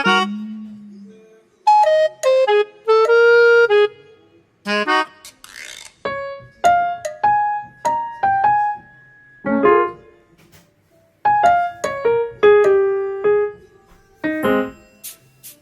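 Background music: a light keyboard melody of short, separate notes played in phrases with brief pauses between them.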